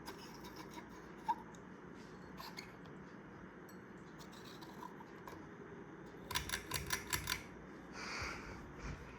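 Quorum 52-inch ceiling fan running with a steady low hum. A quick run of about eight sharp clicks comes about six seconds in, followed by a short hiss.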